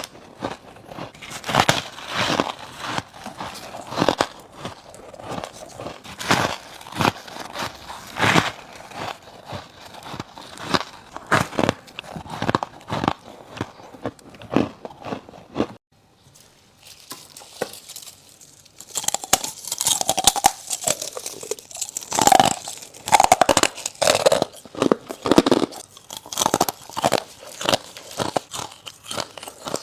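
Close-miked biting and crunching of freezer frost and thin humidifier frost ice, a run of crisp crunches one after another. About sixteen seconds in the crunching stops briefly, then resumes brighter and crisper.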